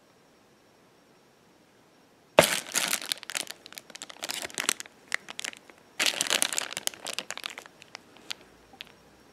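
Thin plastic packaging bags crinkling as they are handled, in two busy bouts of about three and two seconds, starting suddenly after a quiet opening and trailing off into a few light crackles.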